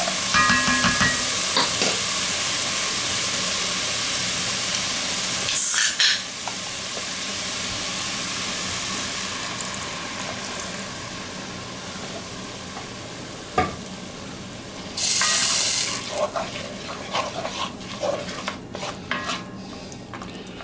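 Chopped onions sizzling in hot liquid in a cast-iron Dutch oven, stirred with a wooden spoon. The hiss is loud at first and slowly dies down, with a few knocks and a brief loud hiss about fifteen seconds in.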